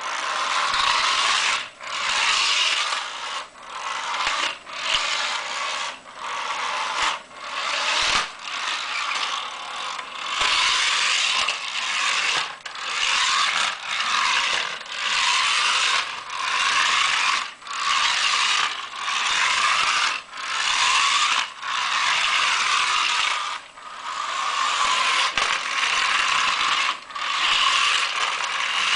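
Toy car's gear train running with a rattling, ratchet-like buzz that breaks off briefly every one to two seconds.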